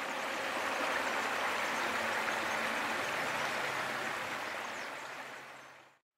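Steady rush of running water from a stream, with a faint low hum joining about three seconds in; it fades out near the end.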